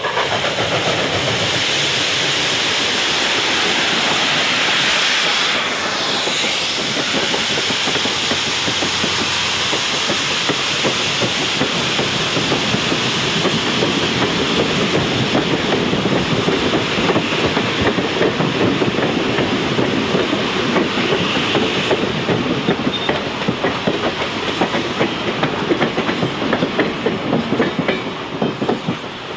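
Steam locomotive and its passenger train passing close by, a loud steady hiss of steam and exhaust. From about halfway through, the cars' wheels clatter quickly over the rail joints as they roll past.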